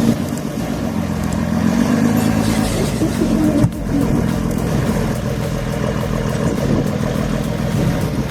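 Engine of heavy forestry machinery running steadily, with a short break a little under four seconds in before an engine sound carries on.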